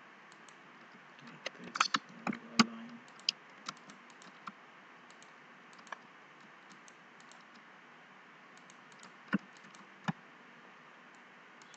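Computer keyboard keys and mouse buttons clicking as CAD commands are entered. A quick flurry of keystrokes comes about a second and a half in, then scattered light clicks, then two sharper clicks near the end, over a low steady hiss.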